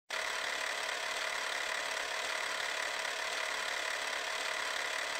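Film projector running sound effect: a steady mechanical whirring rattle that starts abruptly and holds even.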